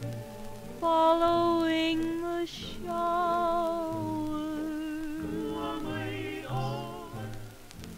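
Slow Hawaiian-style song with no words sung: long held melody notes with vibrato, some sliding upward, over a soft low accompaniment.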